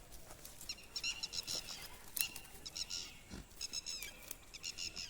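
Small bells worn by walking goats, jingling in short clusters of high ringing notes that recur every half second to second.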